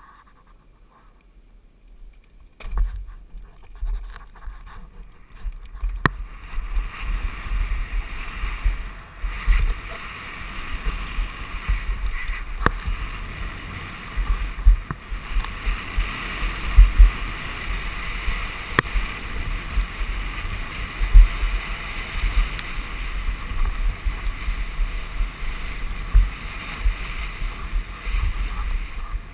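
Downhill mountain bike riding a rough, rocky dirt trail: wind buffeting the microphone over the rumble of knobby tyres on dirt and stones, with frequent low thumps and a few sharp knocks and rattles as the bike hits bumps. Fairly quiet for the first couple of seconds, then steady from about three seconds in.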